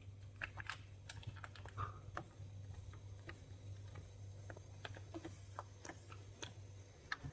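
Faint, scattered light clicks and taps of hands pressing a refrigerator's rubber door gasket into place on the door, over a low steady hum that stops near the end.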